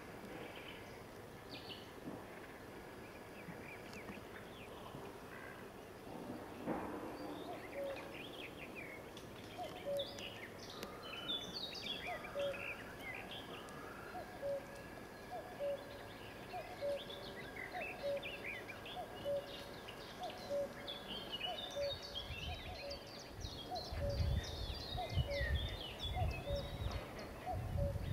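Birds singing and chirping around a reedy lake, with many short calls overlapping. Among them a short low note repeats a bit more than once a second. Low rumbling comes in for the last few seconds.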